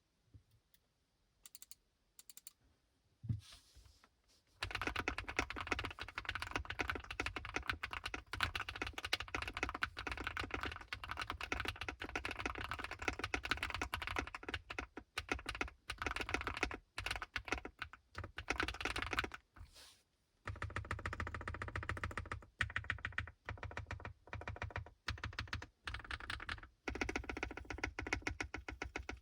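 Sugar65 mechanical keyboard with lubed KTT Kang White linear switches, foam and tape mods and PBT keycaps, being typed on. A few single keystrokes come first, then fast continuous typing from about four seconds in, with a short pause near twenty seconds; the sound is called creamy.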